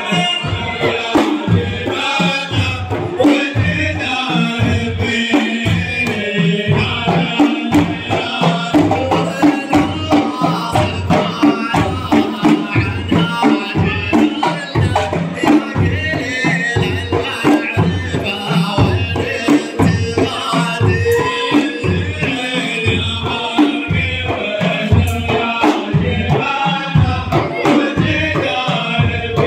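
Large hand-held frame drums beaten together in a steady rhythm, about two beats a second, with men's voices singing in chorus over them: Gulf ardah sword-dance drumming and chant.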